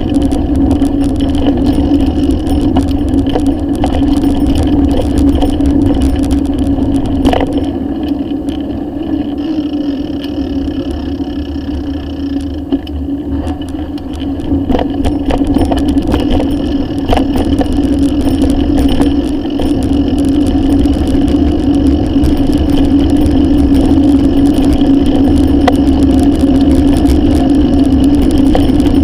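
Riding noise picked up by a handlebar-mounted camera on a moving bicycle: a steady drone with low rumble from wind, tyres and frame vibration, and a few knocks and rattles as the bike goes over bumps in the road.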